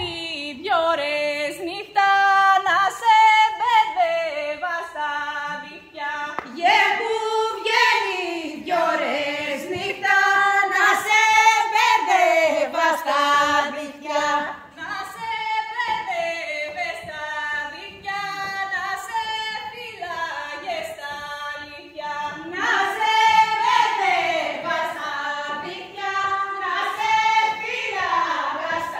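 Woman singing a traditional Epirote folk song into a microphone, in long drawn-out phrases, with other voices joining in.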